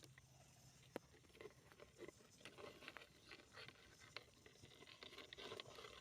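Near silence, with faint scattered light clicks and rustles and one sharper tick about a second in.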